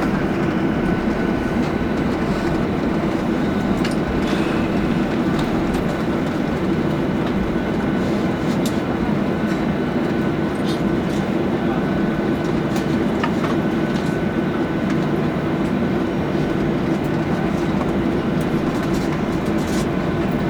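Boeing 737-800 cabin noise while taxiing: a steady rumble from the jet engines and the rolling aircraft, with a faint steady hum and whine and a few light ticks.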